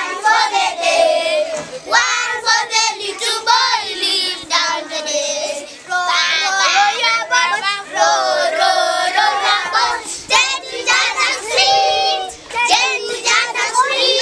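Group of young children singing a song together.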